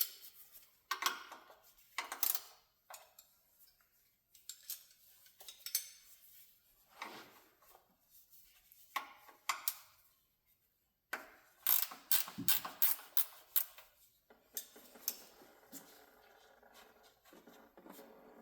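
Metal clicks, clinks and scrapes of a wrench working the oil drain plug out of the engine's oil pan, with a quick run of clicks about twelve seconds in. In the last few seconds a faint steady noise starts, the warm engine oil running into the drain pan.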